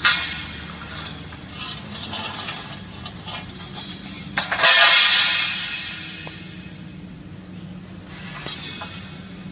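Thin metal greenhouse arch tubes clanging against a concrete floor: a sharp clang at the start, and a louder clang about four and a half seconds in that rings on for about a second, with lighter knocks between.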